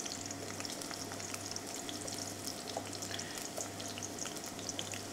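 Olive oil in a hot frying pan, sizzling steadily with many small scattered crackles and pops, over a low steady hum.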